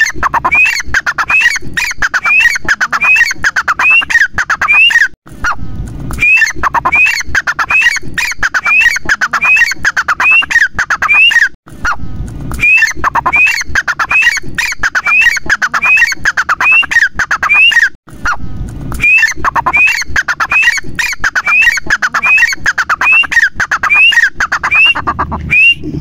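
Grey francolin (teetar) calling loudly: a run of shrill, repeated rising-and-falling notes, about two a second. The calls come in four bouts of several seconds each, with short breaks between them.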